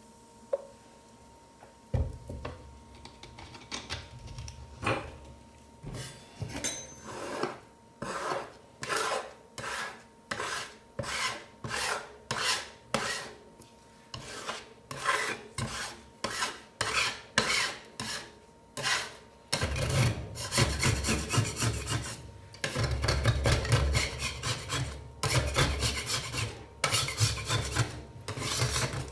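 Metal spatulas scraping a Coca-Cola ice cream mix across a stainless steel rolled-ice-cream cold plate as it freezes. The strokes come about one a second at first, then from about two-thirds of the way through they turn faster, denser and heavier as the frozen mix is scraped up.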